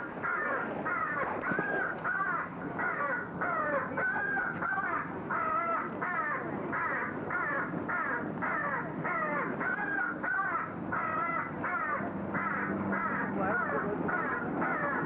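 Repeated short, high squeaks in an even rhythm, about two a second, that go on without a break. A low steady hum comes in near the end.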